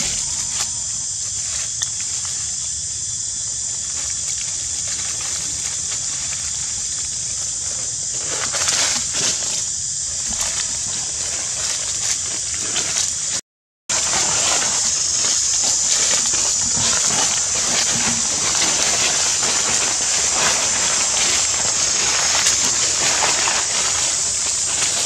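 Outdoor ambience: a steady high-pitched hiss with dry leaf litter rustling and scratching as macaques move about on it, busier in the second half. The sound cuts out completely for a moment about halfway through.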